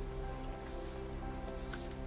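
Background music of long held notes, with faint wet bubbling and squishing of a thin curry simmering and being stirred in a frying pan with a wooden spatula.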